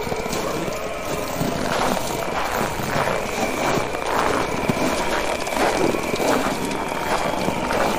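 Bonfire crackling with frequent sharp pops, over a steady rush of wind with a faint held whistling tone.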